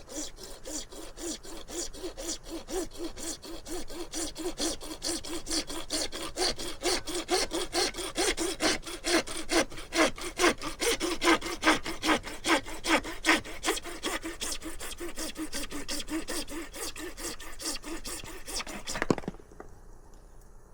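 Hand saw cutting through PVC pipe with rapid, even back-and-forth strokes, stopping suddenly as the cut goes through near the end.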